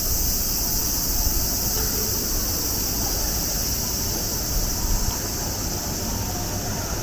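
Outdoor street ambience in strong wind: an uneven, gusty low rumble of wind buffeting the microphone, over a steady high-pitched hiss.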